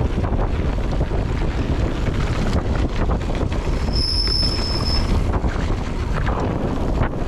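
Wind buffeting a helmet or chest-mounted action camera's microphone on a mountain bike descent, with the bike rattling over the rough trail. A brief high-pitched squeal about four seconds in, lasting about a second.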